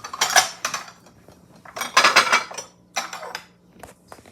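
Copeland Spode china pieces clinking and clattering against each other as they are handled and set down, in four short bursts.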